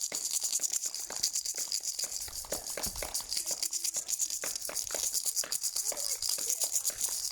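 Many people clapping together, a dense steady patter of hands with a few short faint calls mixed in.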